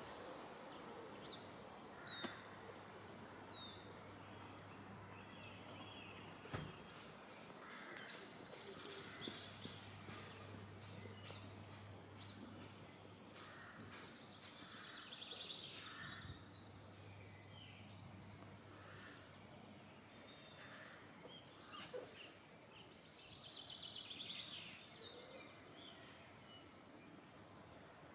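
Wild birds singing faintly: a run of short, high, falling chirps about once a second, with rapid trills now and then. Under them is a low outdoor background and a steady low hum that stops a little past halfway.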